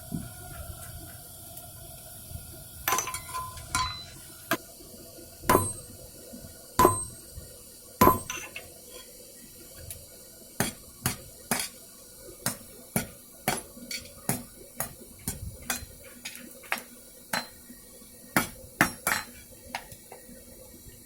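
Hand hammer striking rebar on an anvil as it is forged. The blows are scattered at first, then settle from about ten seconds in into a steadier run of about two a second, some with a short metallic ring.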